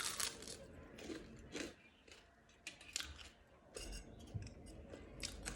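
Close-up eating sounds: chewing with irregular sharp crunches and mouth clicks, several a second.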